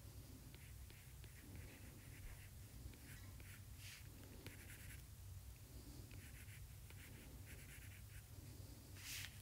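Stylus drawing on a tablet's glass screen: a series of faint short scratching strokes, the loudest near the end, over a low steady hum.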